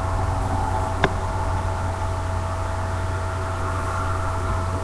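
Steady low hum and hiss with a thin steady tone above it, and a single sharp click about a second in.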